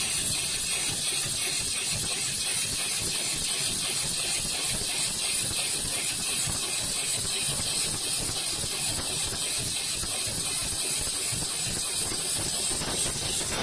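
Extra-heavy-duty 7-class industrial sewing machine with a large barrel shuttle hook running steadily, stitching with a fast, even mechanical rhythm over a steady hiss.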